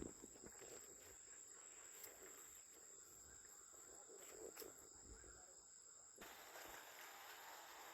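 Faint, steady high-pitched chirring of crickets or similar night insects, with a few soft knocks. About six seconds in, a soft hiss of noise joins it.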